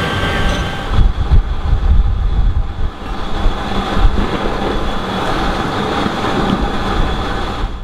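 Fire engine's motor and water pump running steadily while a hose sprays foam and water onto a burnt-out car. Heavy low rumbling from about a second in lasts for roughly two seconds.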